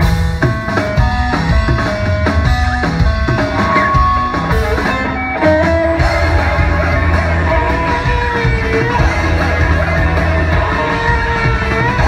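Live band music: a steady bass line and drum kit under guitar and keyboard notes.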